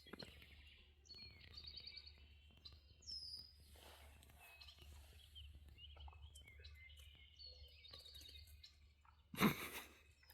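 Songbirds singing and calling, with short trills and whistled upward glides, over a faint steady low rumble. Near the end a short, loud burst of noise stands out above the birdsong.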